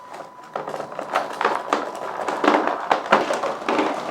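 Cross RC EMO NT6 6x6 RC crawler truck driving over rocks: a fast, irregular clatter of knocks and scrapes, starting about half a second in.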